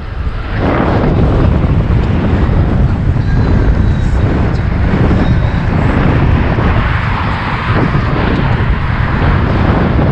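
Wind rushing over the microphone of a cyclist riding at speed, a loud steady rumble of air with no break.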